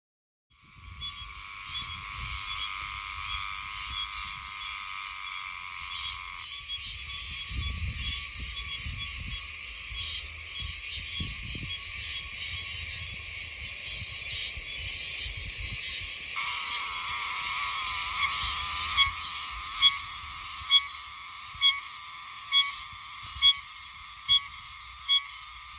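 Oshima cicada (Meimuna oshimensis) singing: a loud, continuous metallic buzz. In the last third it breaks into clipped pulses repeating about once a second.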